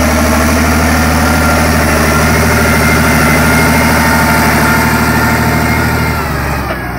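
Same Galaxy 170 tractor's diesel engine running steadily under load while it pulls a plough through the soil. The sound drops off near the end.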